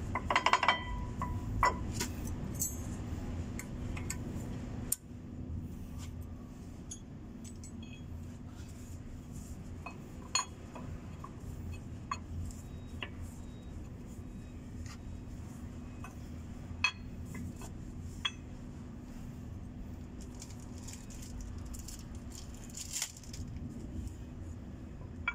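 Metal brake pads and hardware clinking and knocking against a truck's disc brake caliper as they are handled and fitted, a cluster of clinks at first and then single sharp ones every few seconds. A steady low hum runs underneath.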